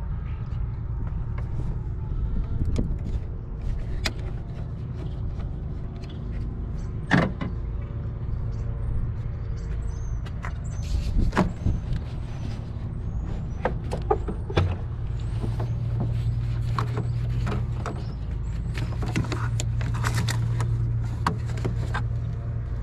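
Scattered clicks and knocks of metal tools and parts being handled over a steady low hum, with a steadier low drone joining about two-thirds of the way through.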